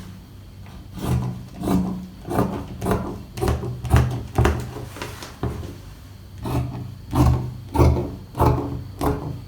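Scissors cutting through fabric: a steady series of snips, about one and a half a second, with a short pause near the middle.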